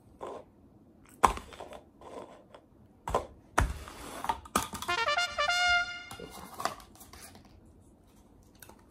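An upturned paper cup knocked about on a wooden tabletop by a dog's nose and mouth: a few sharp knocks, then a squeaky, honking squeal for about two seconds as the cup is pushed and scraped against the table.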